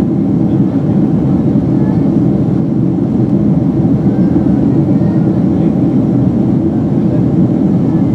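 Steady low roar inside the cabin of a Boeing 767-300ER in flight: engine and airflow noise heard from a window seat beside the wing as the airliner climbs after takeoff.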